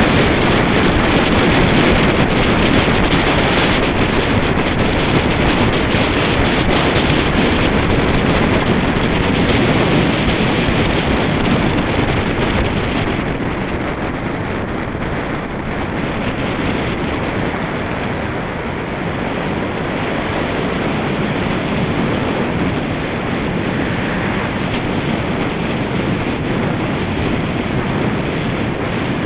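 Steady rushing wind noise buffeting a handlebar-mounted camera's microphone as a road bicycle rides along at speed.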